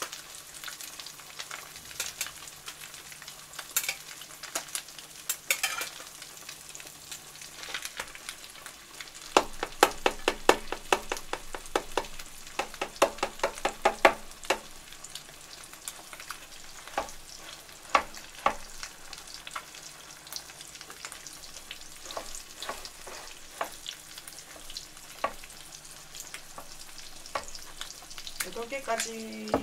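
French toast frying in butter in a pan: a steady sizzle scattered with sharp clicks and pops, with a quick run of clicks about a third of the way through.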